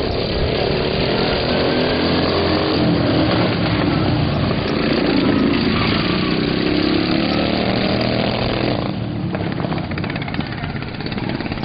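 Several small racing lawn mower engines running together, their pitches rising and falling against each other as the mowers accelerate and slow. The sound thins out and drops a little about nine seconds in.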